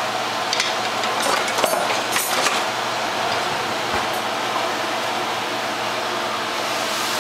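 A steady whirring noise, with a few clinks and scrapes of kitchenware in the first two and a half seconds and a single low knock about four seconds in.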